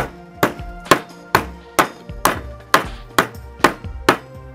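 Claw hammer blows on a red-hot galvanized steel bolt, evenly paced at about two a second, over background music.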